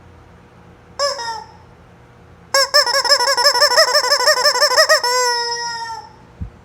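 Screaming rubber chicken toy squeezed: a short squawk about a second in, then a long high squeal from about two and a half seconds in. For its first half the squeal warbles rapidly, about six wobbles a second, as it is chopped by the blades of an electric fan, then it holds steady before stopping.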